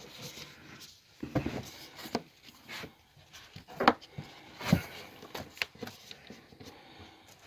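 Close handling sounds: scattered knocks, scrapes and rubbing as hands work a black plastic water pipe into an elbow compression fitting that won't seat.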